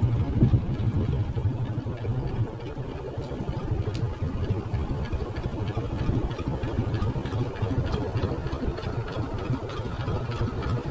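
Small engine running at low revs, a steady low hum that eases a little after about two seconds, with faint rapid ticking through the second half.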